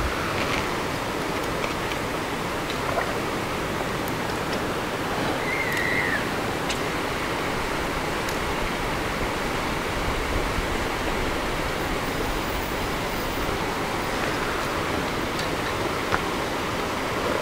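Steady rushing of flowing water, an even hiss without pauses, with a short high chirp about six seconds in.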